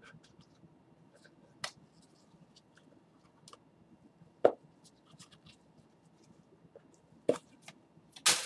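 Trading cards and a small cardboard card box being handled on a table: soft scattered clicks and scratches, with a few sharper taps as they are set down, the loudest near the end.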